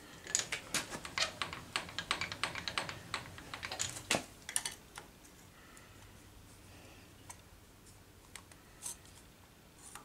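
Rapid light clicking and tapping of a caliper being handled and set against the freshly milled aluminum block, with loose aluminum chips rattling. The clicks come thick for about five seconds, then thin out to a few scattered ticks.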